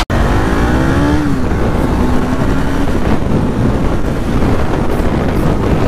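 Bajaj Pulsar NS200's single-cylinder engine pulling through the revs, its pitch rising over the first second, then running steadily under way with wind and road noise.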